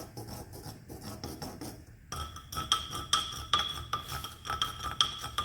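Tea being stirred in a clay pot at the boil: the stirring utensil scrapes and clinks against the pot's sides about three or four times a second. About two seconds in, the strokes turn louder and ring. The stirring is kept up so the tea, now boiling up, does not spill over.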